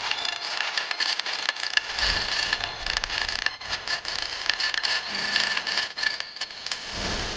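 Turning tool scraping across a rotten, punky silver birch log spinning on a wood lathe: a steady rasping cut with many quick crackling clicks and a faint high whine.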